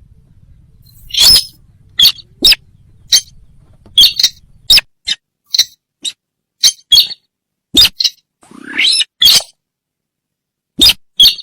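Sintar bird lure call: a string of short, sharp, squeaky bird calls repeated at irregular intervals, some with a quick pitch glide. There is a brief pause near the end.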